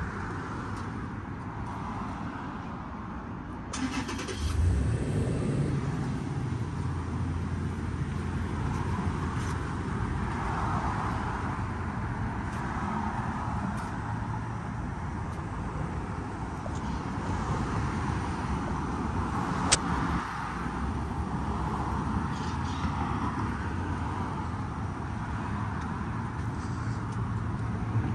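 A car engine starts with a sudden burst about four seconds in, then runs steadily. One sharp click comes near the twenty-second mark.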